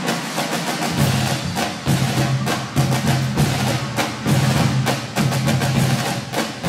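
Percussion-driven stage music: rapid, rhythmic drum hits, joined about a second in by a pulsing deep bass note.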